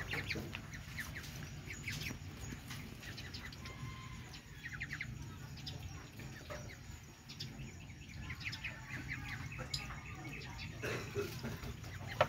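Ducklings peeping, quick runs of short high chirps repeated over and over while they feed on grain.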